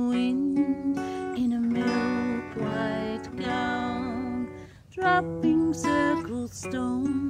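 Acoustic guitar playing a slow accompaniment under a woman's wordless singing in long held notes, with a short pause about two-thirds through.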